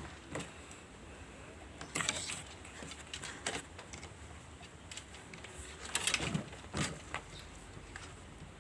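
A chicken with snoring respiratory disease having its throat swabbed with a eucalyptus-oil-soaked feather: a few short, quiet bursts of sound from the bird and its handling, about two seconds in and again around six to seven seconds in.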